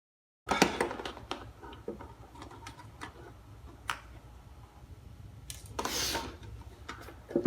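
Sharp clicks and taps of small turntable parts and tools being handled during disassembly, busiest in the first second or so, with a brief rustle about six seconds in.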